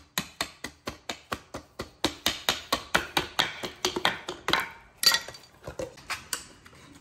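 Rapid hammer blows on metal, about four or five a second with a short ring after each, hardest about five seconds in and tapering off near the end: knocking loose a suspension part rusted in place.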